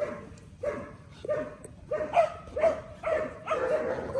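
A dog giving a rapid series of short, pitched barks, about two a second.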